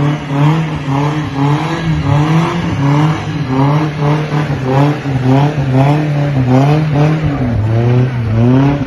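A car stuck in snow, its engine revving and its tyres spinning, making a whine that rises and falls over and over, about one and a half to two surges a second.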